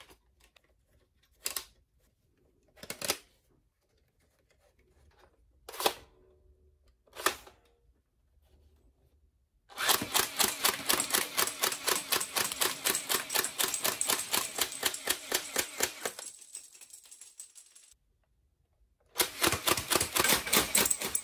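BQZ toy foam-dart blaster firing: four sharp single clacks in its single-shot mode over the first seven seconds, in two pairs. Then its full-auto mode fires a fast mechanical rattle for about six seconds, which trails off, stops, and starts again near the end.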